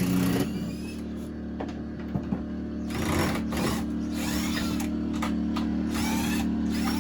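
Cordless drill motor whining as it backs a screw out, stopping about half a second in; a quieter steady hum carries on after it.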